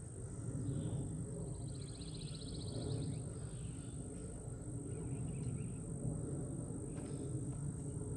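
Outdoor ambience: a steady high insect drone under a low background rumble, with a bird's rapid trill of about a second and a half near the start. A few faint clicks of metal parts being handled come later.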